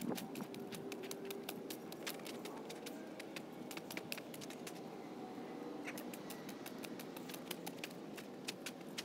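Faint outdoor ambience: a low steady hum with many irregular sharp clicks and ticks, thickest in the first two seconds and again from about six seconds on.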